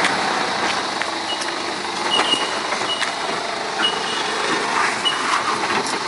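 Ford Ranger ute crawling slowly over a rocky track, engine running and tyres crunching over rock and dirt. Short high-pitched beeps repeat about once a second throughout.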